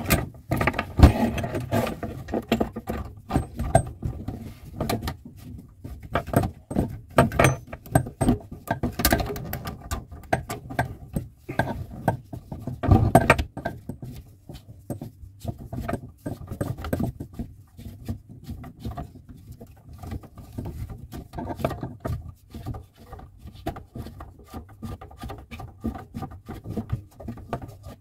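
Irregular clicks, knocks and rattles of hands handling a kitchen mixer tap's fixing parts under the sink, with louder knocks about a second in and near the middle.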